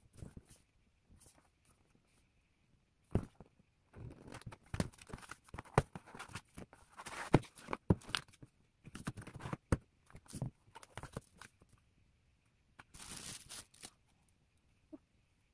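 Packaging being handled during an unboxing: a plastic bag and the oral irrigator's cardboard box rustle and crinkle in short bursts, with scattered sharp clicks and knocks. There are brief pauses between bursts.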